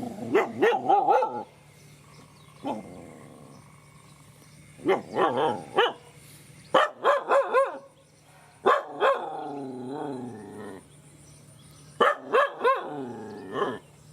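A dog barking in quick bursts of several high-pitched barks, with one long whining call about halfway through that slowly falls in pitch.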